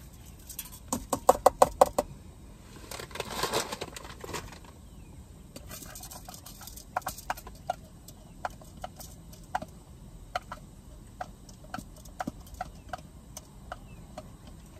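Cookware clinking and tapping while rice is being prepared: a quick run of ringing clinks about a second in, a short rushing pour around three seconds in, then scattered light clicks and taps.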